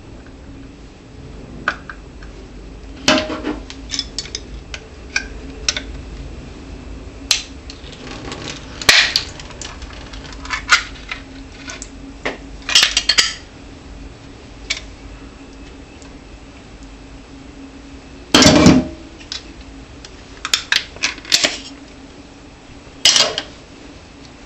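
Channellock pliers working a sardine can open: irregular metal clicks, scrapes and clanks as the tin lid is worked back, with a few louder clusters of clatter spread through.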